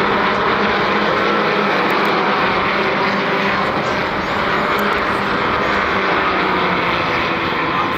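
Formula Vee race car's air-cooled Volkswagen flat-four engine running steadily under a loud, even rush of wind and road noise.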